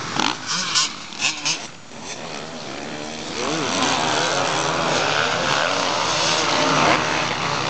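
Motocross bike engines revving up and down as riders race round a dirt track. The engines grow louder after about two seconds, and a few short bursts of other noise come in the first two seconds.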